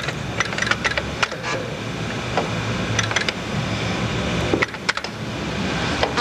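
A Fairlight CMI being operated as a sound is loaded from its floppy disc: irregular sharp clicks and knocks over a steady low hum.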